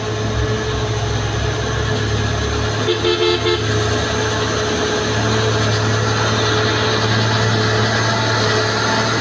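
Mitsubishi Fuso cargo truck's diesel engine running in a steady low drone as the loaded truck pulls slowly closer, getting a little louder. About three seconds in a vehicle horn sounds a short run of rapid beeps.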